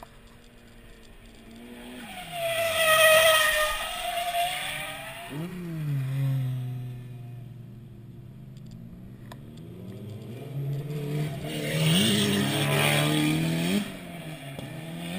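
Drift cars sliding past in tandem, engines revving up and down and tyres squealing; two loud passes, one about two seconds in and another around twelve seconds.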